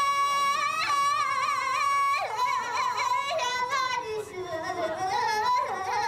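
A woman singing a Tibetan layi (mountain love song) in a high, ringing voice: one long held note with a few wavers, then quick ornamented turns as the melody falls lower near the end.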